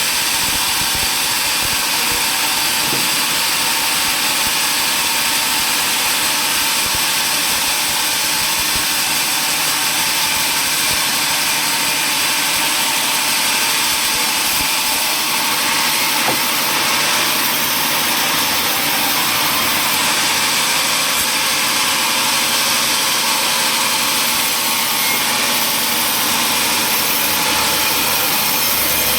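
Sawmill machinery running with a loud, steady noise, unchanging throughout, with no sign of separate cuts or impacts.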